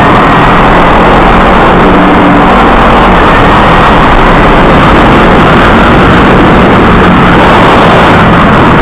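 Kawasaki Ninja 250R's parallel-twin engine running steadily under way, with loud wind and road noise over the on-board camera microphone.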